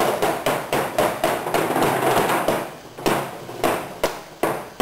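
Pliers cinching wire stitches tight on plywood hull panels: a run of sharp metallic clicks and knocks, about two a second, busier around the middle.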